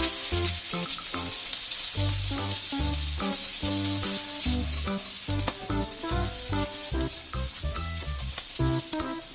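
Food sizzling steadily in a frying pan, with background music that has a bouncing bass line.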